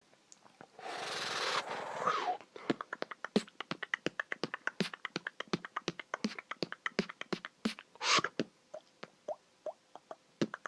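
Beatboxing made of mouth clicks: a long breathy hiss, then a fast run of sharp clicks at several a second, a second short hiss about eight seconds in, and slower, sparser clicks near the end.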